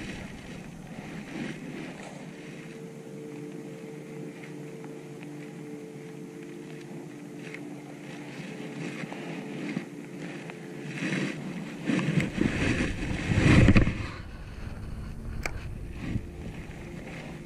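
A small electric boat motor on the skiff humming steadily with a low, even tone, which stops about eleven seconds in. Then come a few loud low thumps and rustles.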